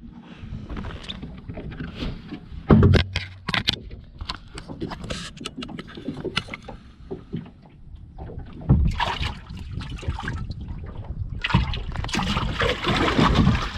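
Water sloshing around a small fishing boat, with a steady low rumble and scattered handling clicks and knocks, a cluster of sharp knocks about three seconds in.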